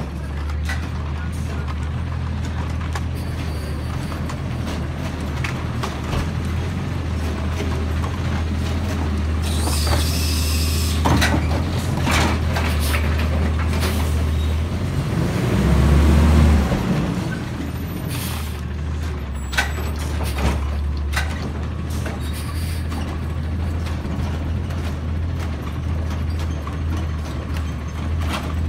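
Automated side-loader garbage truck running in low gear. There is a short air-brake hiss about ten seconds in and a brief rise and fall of the engine past the middle, the loudest moment, with scattered knocks and clatter from the truck body and carts.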